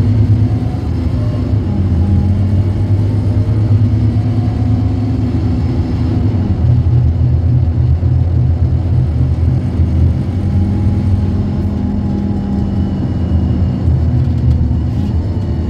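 Scania K230UB bus's five-cylinder diesel engine running steadily, its note changing about six and a half seconds in.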